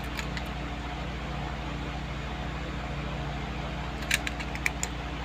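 Steady low background hum, with a quick cluster of light clicks about four seconds in as small die-cast toy cars are handled together in the hands.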